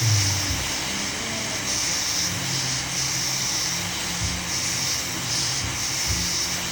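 Background music with a low bass line and a repeated high hissing pattern over it.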